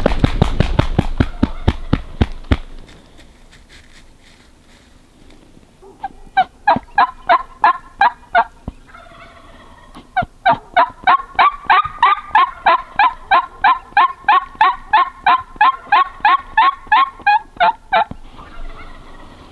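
Wild turkey sounds: a loud, rattling burst in the first couple of seconds, then two long runs of evenly spaced yelps, about four a second, the second run lasting some eight seconds.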